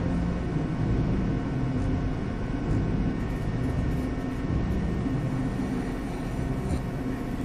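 A steady low rumble with a faint hum, unchanging throughout.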